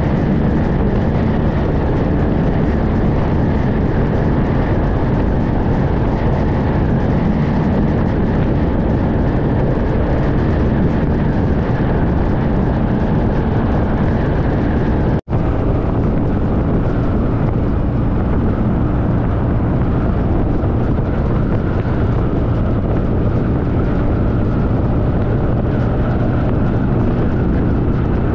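Steady ride noise from a Honda VFR1200X V4 sport-tourer at highway speed: a continuous rush of wind and road noise with the engine running underneath. The sound cuts out for an instant about halfway through.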